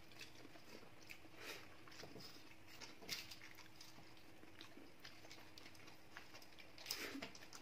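Faint eating sounds from rice and chicken curry eaten by hand: soft chewing, with scattered small clicks and taps of fingers on metal plates, a little louder near the end.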